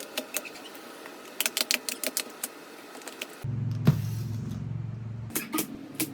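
Rapid clicks, knocks and light clatter of grocery packages and containers being set onto refrigerator shelves. Partway through, a low steady hum joins in for about two seconds.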